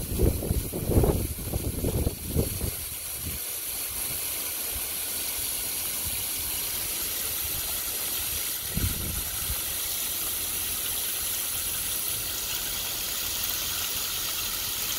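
Garden hose spray nozzle on a low-pressure shower setting, spraying water into a partly filled plastic bucket: a steady hiss of spray and splashing. A few low thumps come in the first three seconds and again about nine seconds in.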